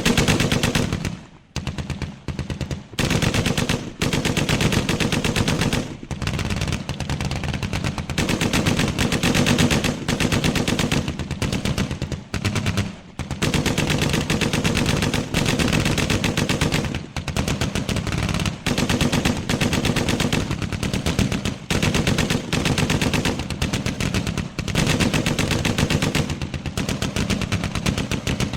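Sustained automatic gunfire: machine guns firing long, rapid bursts almost without pause, broken only by a few brief gaps, in a battle sound effect.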